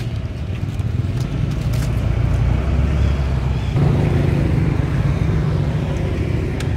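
A steady low engine rumble from a motor vehicle running nearby. It changes abruptly about four seconds in, with a few light clicks before that.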